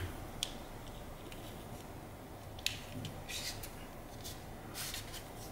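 Heat-shrink tubing being squeezed open and slid over the end of an audio cable: faint rubbing and rustling, with a few small clicks.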